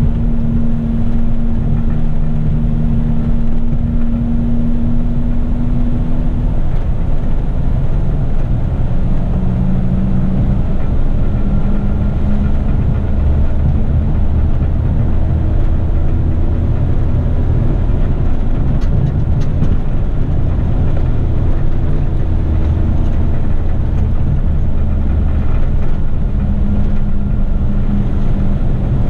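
Heavy rigid truck's diesel engine running while driving, heard from inside the cab over steady tyre and road noise. The engine note changes pitch a few times.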